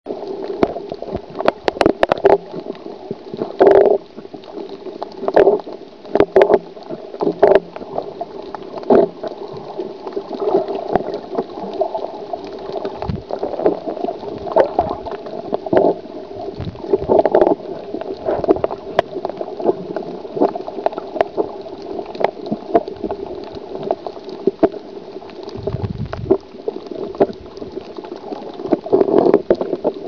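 Underwater sound picked up by a camera submerged on a reef: muffled water noise with a steady low hum and frequent irregular sharp clicks and crackles.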